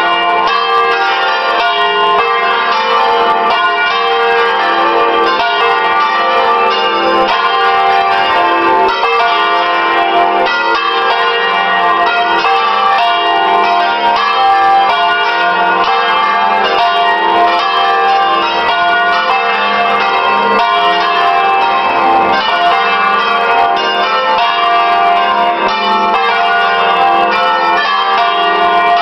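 A peal of six church bells tuned in F3, swinging and ringing all together in full plenum, as a call to the festive Sunday Mass. The strokes overlap continuously without a pause.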